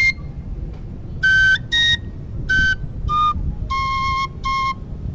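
A small high-pitched flute plays a short melody of about seven separate, clear notes, each held briefly and moving up and down in pitch. This is a run through the second part of the dance tune. A steady low rumble lies underneath.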